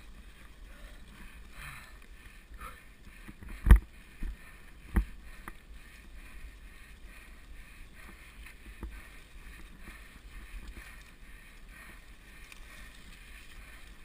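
Mountain bike tyres rolling through a thick layer of dry fallen leaves, a steady rustling hiss, with a few sharp knocks as the bike jolts over bumps, the loudest about four seconds in.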